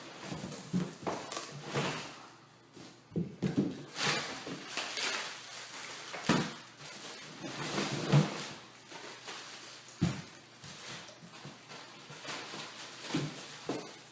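Irregular knocks, thuds and rustling of things being handled and set down, as of a boxed office chair and its parts being moved about.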